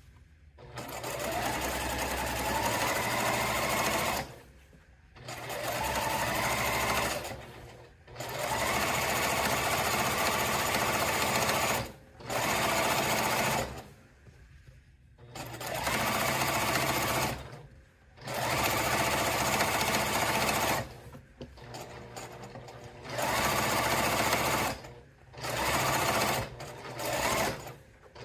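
Straight-stitch domestic sewing machine stitching a rolled hem, run in spurts of one to four seconds with short stops between, about eight runs in all. The motor's pitch rises as it speeds up at the start of the first run.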